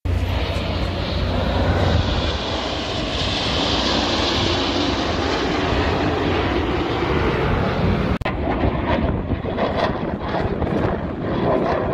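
Jet aircraft flying past with a steady roar that swells into a strong hiss about three to five seconds in. There is a brief break about eight seconds in, after which wind buffets the microphone over the continuing roar.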